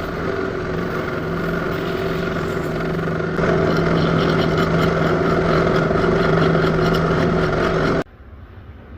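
Small electric motor of a makeshift lathe running steadily, spinning a nail; it grows louder about three seconds in and cuts off suddenly near the end.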